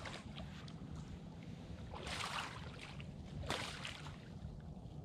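Water splashing in short surges, about two seconds in and again at three and a half seconds, as a hooked blue catfish thrashes at the surface close to the bank, over a low steady rumble.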